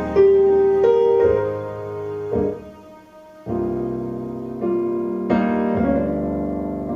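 Recorded piano music played back over a hi-fi loudspeaker system: slow, sustained piano chords that die away almost to nothing about three seconds in before the next chord is struck.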